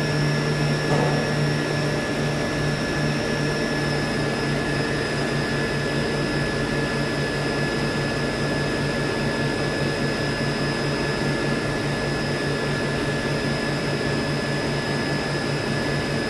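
Doosan VC 630 5AX five-axis CNC vertical machining center milling a workpiece under coolant: a steady machine hum and spindle whine over a hiss of cutting and coolant spray. The high whine drops slightly in pitch about four seconds in.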